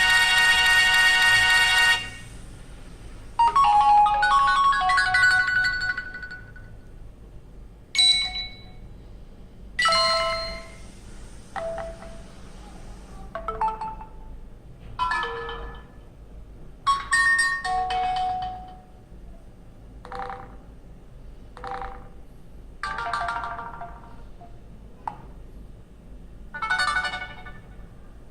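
HTC Desire 610 phone playing its preset ringtones and alert tones one after another, about a dozen short previews. Each is a chime or short melodic phrase of a second or two, with brief gaps between. The first is a loud, buzzy tone.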